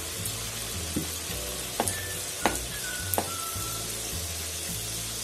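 Gulab jamun dough balls deep-frying in oil on a low flame: a steady sizzle and bubbling. Four sharp clicks come between about one and three seconds in, with faint background music underneath.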